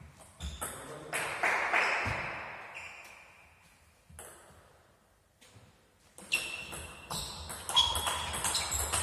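Table tennis ball clicking off the table and the players' rubber bats with sharp pings that echo in a large hall. A few hits come early, then a pause, then a quick back-and-forth rally from about six seconds in.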